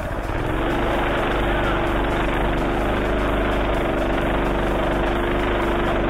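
Minibike's small engine running under way while the bike is ridden; the note dips briefly at first, then holds steady.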